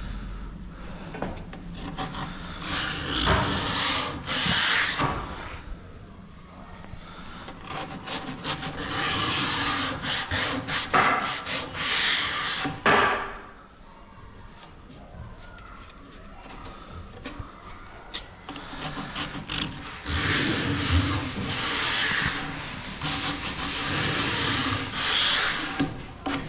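Sandpaper rubbed by hand over wood in runs of scraping strokes with short pauses, easing off for a few seconds about halfway through before picking up again.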